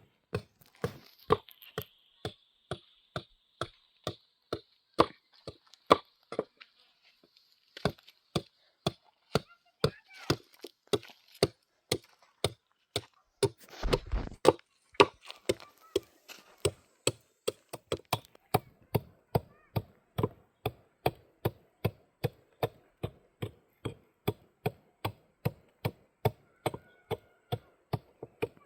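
Rapid, evenly spaced blows of a hand tool, about two and a half strikes a second, with one short pause about seven seconds in.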